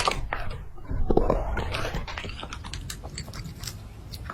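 An animal chewing and crunching: a quick, irregular run of crunchy clicks.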